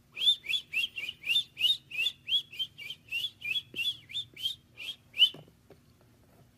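Muscovy duckling peeping: a run of about seventeen short, rising peeps at an even pace of about three a second, stopping abruptly about five and a half seconds in.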